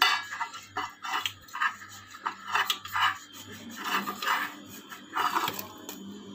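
Pastry brush scrubbing oil over the inside of a metal cake tin in quick repeated strokes, about two or three a second, brushing against the metal.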